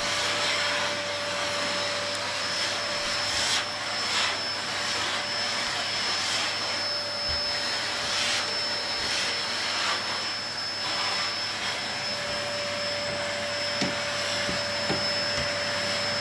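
Canister vacuum cleaner running steadily, a rush of air with a steady high motor whine, as its floor nozzle is pushed over a painted floor. A few light clicks come through, several near the end.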